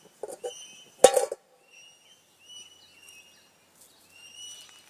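Birds calling in the background with short, high, whistled notes repeated at two pitches. A brief loud, sharp sound about a second in stands out above them.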